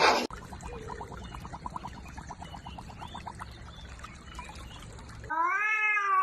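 A cat gives one long, loud, drawn-out meow that rises and then falls, starting about five seconds in. Before it, a quieter stretch holds a quick run of soft ticks, about six a second.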